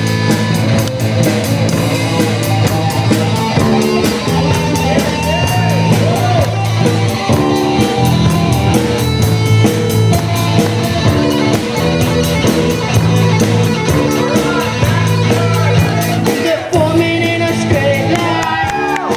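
Live rock band playing amplified through a PA: electric guitar, electric bass and a drum kit keeping a fast, even beat, with a boy singing lead into a microphone, his voice most prominent near the end.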